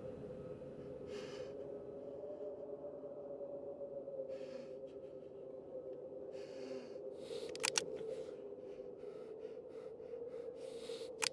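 A steady droning tone held throughout, under tense breaths that come in short noisy gusts every few seconds. Two sharp clicks stand out, one about two-thirds of the way through and one at the very end.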